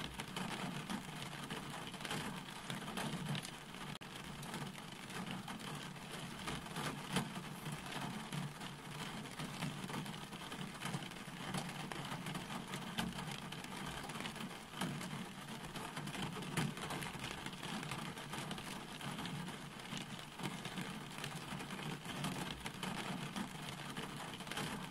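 Steady rain falling, a dense patter of drops hitting a wet surface.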